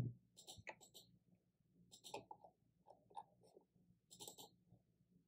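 Faint computer mouse clicks: a few quick pairs of clicks, like double-clicks, spread across a few seconds.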